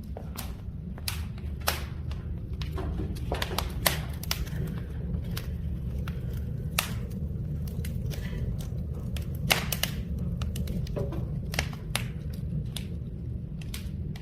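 Oak and pine logs burning in a wood-fire brazier: irregular sharp crackles and pops, a few louder snaps, over a steady low rumble of the fire.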